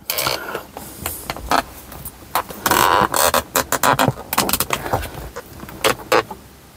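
Repeated clicks, knocks and scraping of tools and small metal parts being handled during a brake-light switch replacement, with a longer scrape about three seconds in.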